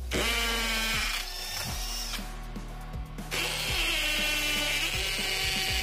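Maxsell 20 V cordless hammer drill boring a masonry bit into a concrete hollow block in hammer mode. It runs for about two seconds, stops briefly, then runs again for about three seconds.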